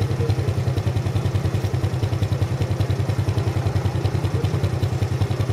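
Small Honda motorcycle engine idling with a steady, even putter.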